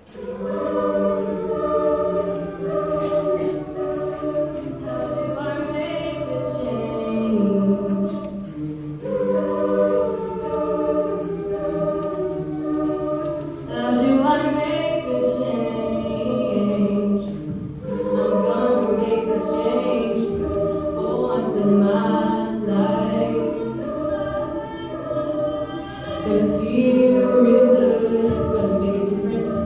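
Mixed choir of male and female voices singing in parts. The voices come in together right at the start and carry on with phrases rising and falling in loudness.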